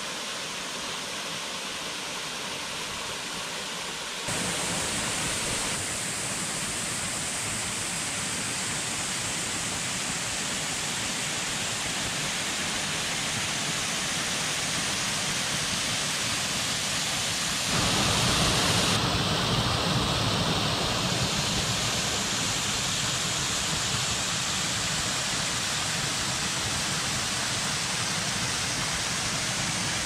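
Waterfall pouring into a rock pool: a steady rush of falling water that steps up in loudness about four seconds in and again just past the middle.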